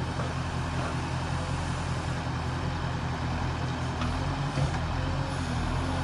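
Diesel engine of an earthmoving machine running steadily at an even speed, with a single brief knock about four and a half seconds in.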